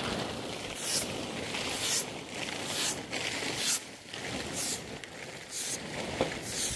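Repeated scraping or rasping strokes, about one a second, over a steady rustling noise.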